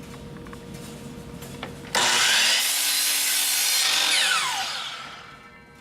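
Power miter saw switched on about two seconds in, its blade cutting through the end of a wooden board to square it off. The trigger is then released and the blade spins down with a falling whine that fades away.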